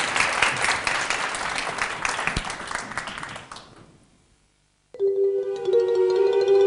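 Studio audience applauding, fading out about three and a half seconds in. After a second of silence, the instrumental intro of a song starts with steady held notes.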